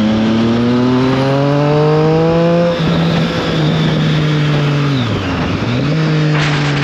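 Triumph Street Triple 765 RS's inline three-cylinder engine pulling under acceleration, rising in pitch for about two and a half seconds. It then drops sharply in pitch at an upshift and runs steadily, dips in revs about five seconds in, and picks up again near the end.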